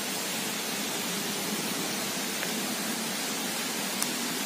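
Steady, even outdoor background hiss, with a faint click about four seconds in.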